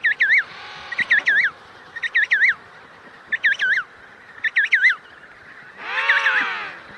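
Emperor penguin chick giving its high, wavering whistled begging call in bursts of two or three notes, about once a second. Near the end an adult emperor penguin answers with one longer, lower and fuller call.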